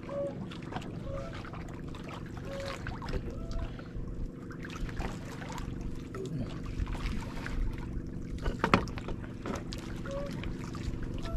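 Small wooden outrigger boat drifting at sea: water slapping against the hull under a steady low hum, with soft clicks from handling fishing line and bait. A brief louder knock comes about nine seconds in.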